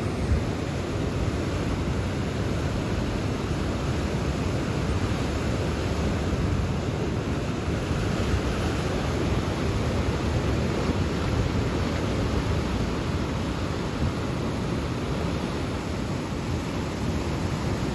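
Ocean surf washing over and around rocky shore ledges and rock pools: a steady, even rushing noise.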